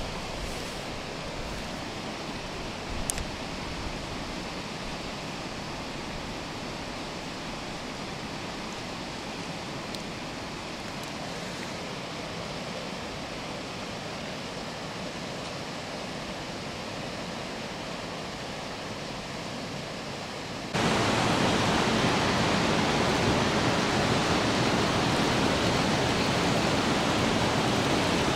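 Steady rushing noise, like flowing water, with a small click about three seconds in; about 21 seconds in it jumps abruptly louder and fuller.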